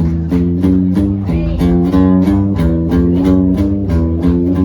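Instrumental intro of a country song: guitar picking a steady run of notes over a bass line.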